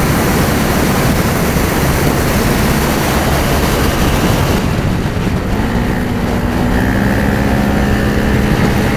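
Motorcycle riding at speed: loud wind rushing over the microphone, with the engine running steadily beneath it. About halfway through, a steady engine hum comes up and holds.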